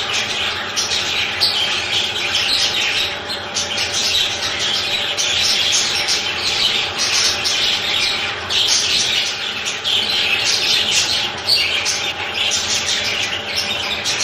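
A flock of budgerigars chattering all at once: a dense, unbroken mass of high twittering calls.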